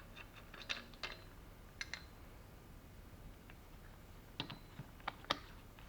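A few faint, scattered metallic clicks and taps as the belt tensioner pulley is unscrewed and taken apart in a vise, with a small cluster near the end.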